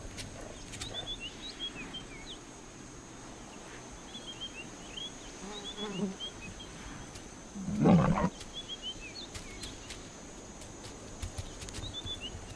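A lioness growls: a short, low growl about six seconds in, then a louder snarl about eight seconds in. Small birds chirp in short bursts behind it.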